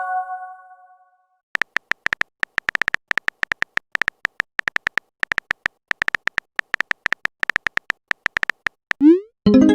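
Chat-app sound effects: a run of quick, irregular short beeps of a typing effect as a message is typed out, then a quick rising swoop and a bright ringing message chime near the end. The first second holds the fading ring of an earlier chime.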